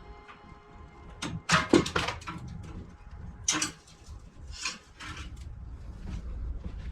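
A few sharp knocks and clatters, loudest in a cluster about a second and a half in, with single knocks a couple of seconds later.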